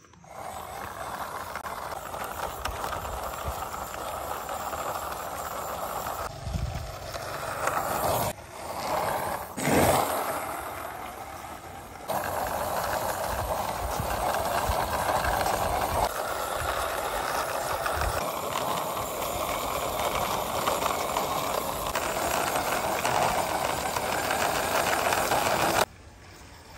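Plastic toy jeep wheels rolling along a rough concrete wall, pushed by hand: a steady gritty rolling rattle. It breaks off briefly a few times, surges louder about ten seconds in, and stops abruptly near the end.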